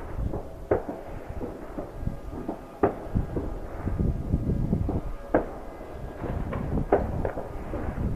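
Distant New Year's fireworks going off: irregular sharp bangs, roughly one every second or so, some close together near the end, over a steady low rumble of further explosions and wind.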